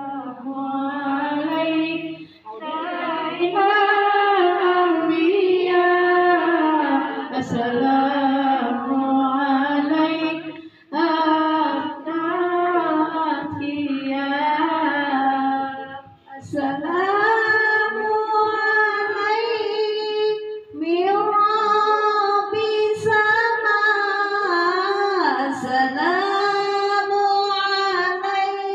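A woman singing or chanting a melodic religious recitation, long held notes with wavering ornamented glides, in phrases of several seconds separated by brief pauses for breath.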